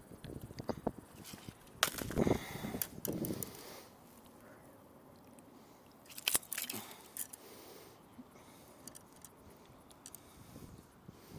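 Rustling, scraping and knocking of handling as a small bass is lifted out of the water by the line onto a dock. The noise comes in two loud clusters, one about two seconds in and a shorter one about six seconds in.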